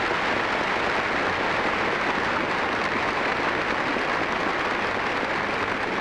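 Audience in a large hall applauding steadily.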